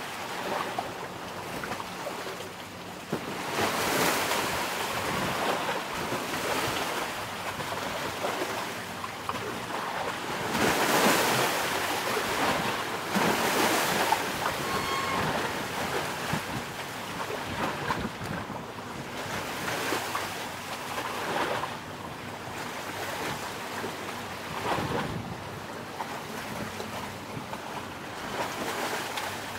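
Sea waves washing ashore, mixed with wind buffeting the microphone; the noise swells and fades every few seconds.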